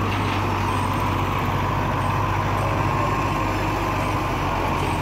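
Farm tractor's diesel engine running steadily while the tractor is stuck, its rear tyre dug into loose dirt.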